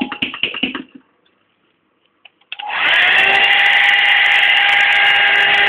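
A small electric motor running with a steady whine cuts out at the start, with a few knocks of handling as it stops. After about a second and a half of silence and a couple of clicks, it comes back on, spinning up quickly and running steadily again.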